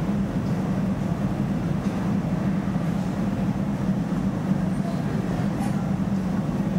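Industrial laundry machinery running: a steady low hum with an even noise of machinery over it.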